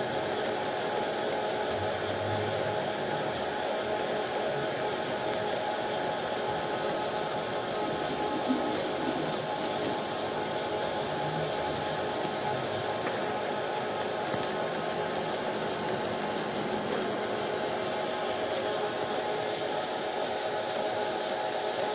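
Tevo Black Widow 3D printer running while it prints the first layer: a steady whir from its cooling fans with a constant high whine from the stepper motors driving the hotend.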